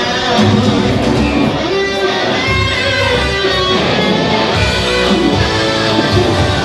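Loud rock music driven by strummed electric guitar, played by a band to accompany a staged fight.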